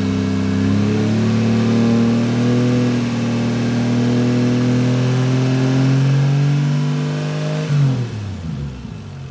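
Toyota 1JZ VVTi straight-six in a Nissan S13, held at raised revs for about seven seconds, then let back down toward idle near the end. The exhaust smoke looks blue to the owner, the sign of an engine burning oil; he has found oil in the coolant.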